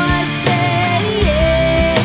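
Background music: a rock song with guitar, a steady beat and long held notes.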